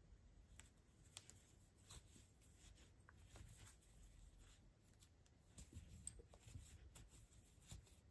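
Near silence with faint rustling and scattered light ticks: a crochet hook pulling 4 mm twisted cotton cord through stitches as single crochet is worked.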